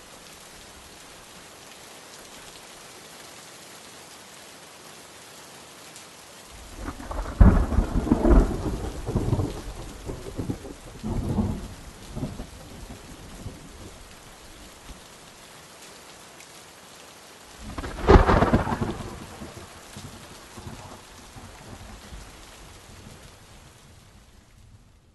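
Steady rain with two rolls of thunder: the first comes about six and a half seconds in and rumbles for several seconds; the second, shorter one comes about eighteen seconds in. The rain fades out near the end.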